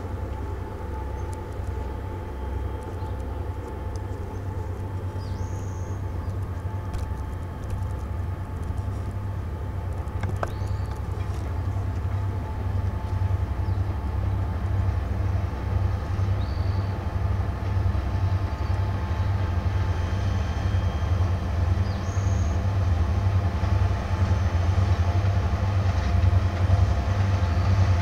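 Four EMD diesel-electric road locomotives (GP39-2s and a GP40) rumbling steadily, growing louder as the freight train approaches across a wooden trestle. A few short high chirps sound now and then over the rumble.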